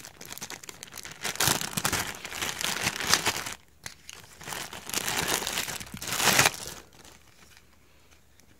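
Clear plastic packaging bag crinkling and rustling as hands open it and pull out a plastic battery holder. The crinkling comes in two loud stretches and dies away about seven seconds in.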